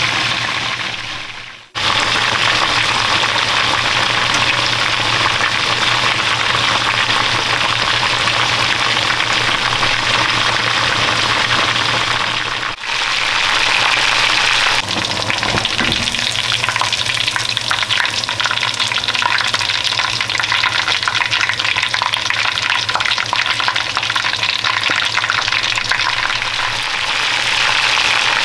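Flour-coated chicken pieces deep-frying in a pot of hot oil, a steady sizzle and bubbling crackle. It drops out briefly about two seconds in and dips once near the middle.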